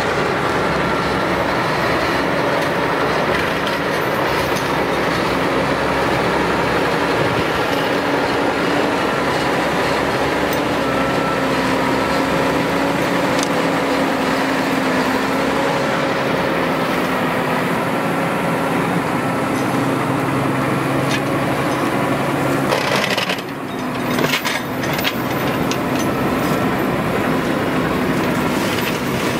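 A tractor-mounted twin-head forestry flail mower running, its spinning flail heads chopping through brush and young shrubs with a dense, steady splintering noise over the tractor's engine. The noise dips briefly about three-quarters of the way through, then carries on.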